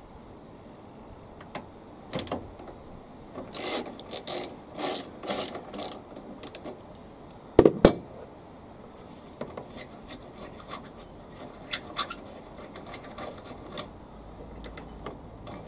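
Socket ratchet on an extension bar undoing the battery hold-down bolt: a run of ratchet clicks in the middle, then two sharp knocks about eight seconds in, followed by scattered light clicks.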